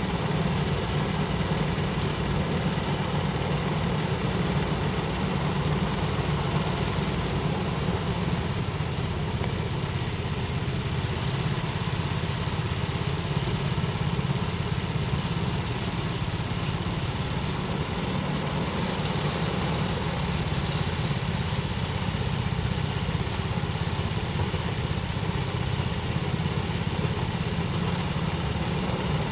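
Engine-driven rice thresher running steadily at a constant speed, a continuous low engine hum.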